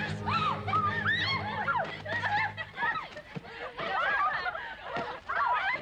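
A group of young women giggling, laughing and squealing during a pillow fight, with many overlapping high-pitched voices. A low, steady music bed underneath stops about halfway through.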